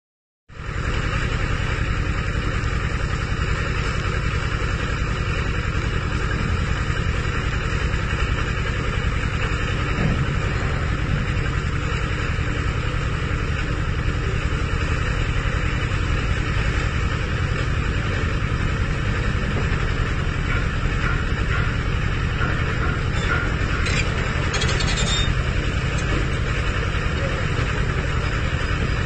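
Small crawler bulldozer's diesel engine running steadily at a constant speed, with a few light clinks about three-quarters of the way through.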